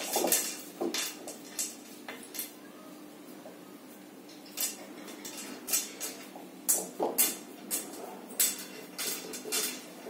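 Rice-flour and bottle gourd dough being pressed and spread by hand in an oiled metal pan, with scattered light clinks and knocks as the pan shifts under the hand.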